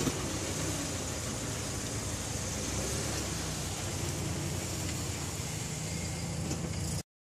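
Kia K5 (Optima) engine idling steadily, then cutting off abruptly near the end.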